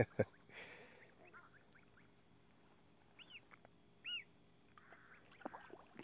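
Goslings peeping: a few soft, short, high peeps about three and four seconds in, after a brief knock at the very start.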